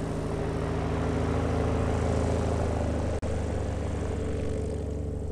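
Steady low drone of an engine running at constant speed, with a brief dropout about three seconds in.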